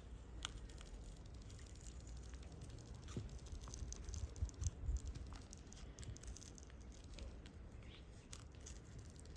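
Faint handling noises from work on a smartphone's internals: small scattered clicks and scrapes of a tool on plastic and metal parts, with a few soft knocks about four and a half seconds in.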